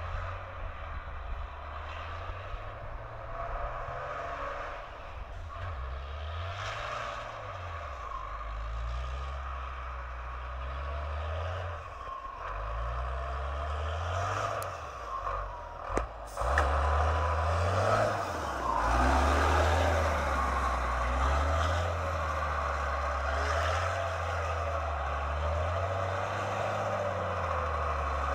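Iveco rally truck's diesel engine revving up and down as the truck drives through snow, growing louder from about halfway in as it comes close.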